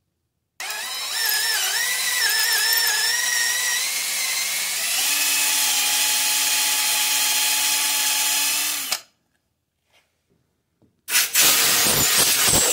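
Power tool motor running bolts on an engine's cylinder head for about eight seconds. Its pitch wavers at first, then holds steady before it stops suddenly. A short burst of noise follows near the end.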